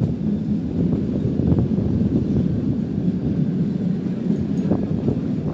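Narrow-gauge Shivalik toy train running along the Kalka–Shimla line, a steady rumble of wheels and coach heard from inside the carriage, with a couple of faint clicks.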